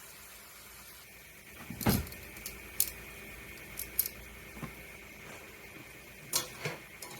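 Kitchen cookware being handled: a series of sharp clicks and knocks, the loudest a clunk with a low thud about two seconds in and two more knocks near the end, over a faint steady high-pitched hum.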